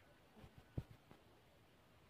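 Near silence, broken by a couple of soft, dull knocks in the first second.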